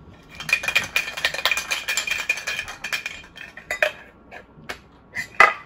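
Manual can opener cranking around the lid of a metal Funko Soda can: a rapid run of metallic clicks with a steady high ring for about three seconds, then a few separate clicks and knocks, the loudest near the end.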